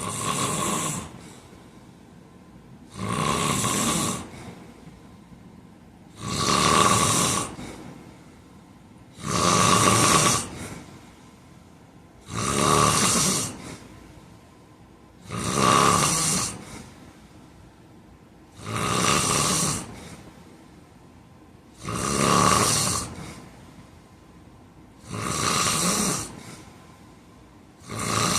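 A man snoring in his sleep: a loud snore about every three seconds, each lasting a little over a second, in a steady, regular rhythm.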